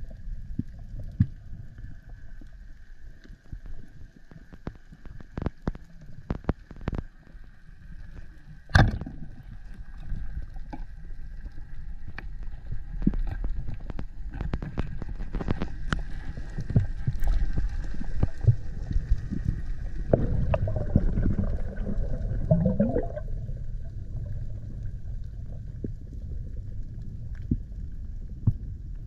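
Underwater sound of a spearfishing dive picked up by a GoPro: a low rumble of water with scattered clicks and crackles, and one sharp crack about nine seconds in. A wavering tone climbs in pitch a little past two thirds of the way through.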